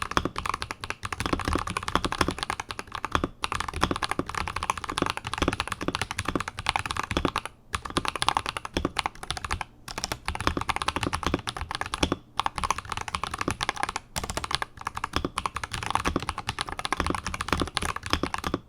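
Continuous fast typing on an Akko 5075S mechanical keyboard with Akko Lavender Purple switches lubed with Krytox 205g0, mounted on a polycarbonate plate: dense key clacks with a brief pause every few seconds, stopping at the very end.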